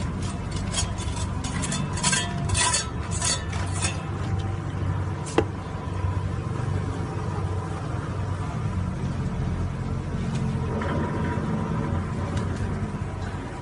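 Steel shovel scraping and clinking through cement mix in quick strokes over the first few seconds, with one sharp metallic clang about five seconds in. A steady low hum runs underneath.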